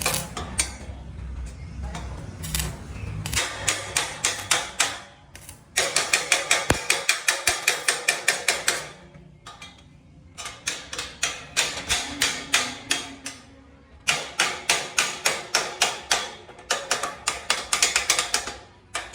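Rapid, even tapping, about six strikes a second, in runs of two to three seconds with short pauses between them.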